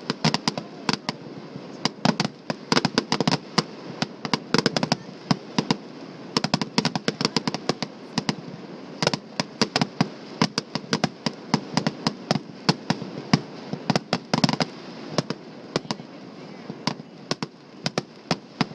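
Fireworks going off in dense, irregular strings of sharp pops and cracks, several a second.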